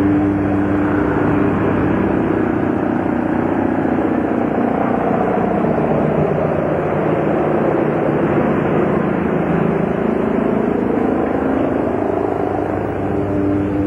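An engine running steadily, a continuous low hum with no break.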